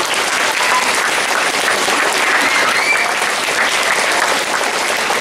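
Crowd of schoolchildren applauding steadily, many hands clapping at once.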